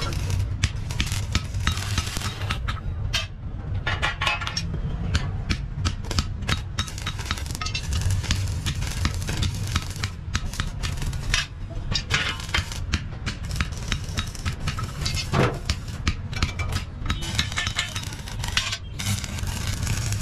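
Stick welding: the arc crackles and spits steadily as a steel handle frame is welded onto a sheet-metal wheelbarrow tray, with a low steady hum underneath. The crackle thins briefly about three seconds in.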